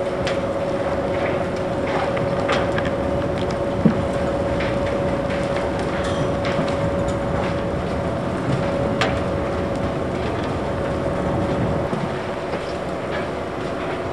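O&K bucket-wheel excavator 258 at work: the bucket wheel turning and its buckets tipping earth onto the chute, a steady mechanical drone with a constant hum. Scattered knocks and clatter of falling earth and steel run through it, the sharpest about four seconds in.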